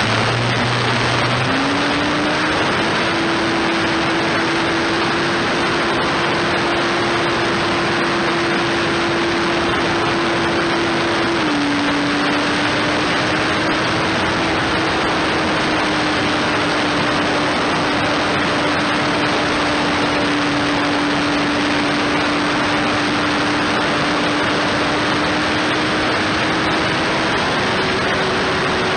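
Electric motor and propeller of a foam RC plane running in flight, heard from a camera on the plane: a steady hum over loud rushing prop and air noise. The hum's pitch steps up shortly after the start, drops about 11 seconds in and rises again near the end as the throttle changes.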